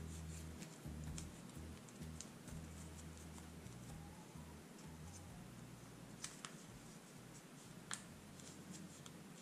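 Faint rustling and crinkling of a dollar bill being folded and creased by hand, with a few sharper crinkles about six and eight seconds in.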